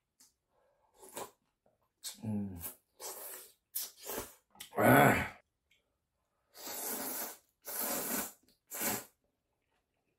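Close-up mukbang eating sounds: broth and noodles slurped in a series of short, hissy sucking bursts, the loudest about five seconds in, and a run of quick noodle slurps near the end.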